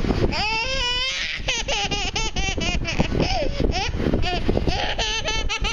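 Baby laughing: a long high squeal about half a second in, then quick runs of giggling.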